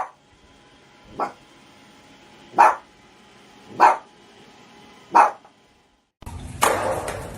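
A dog barking: five single barks about a second and a quarter apart. About six seconds in the sound cuts to a steady hiss with a louder burst of noise near the end.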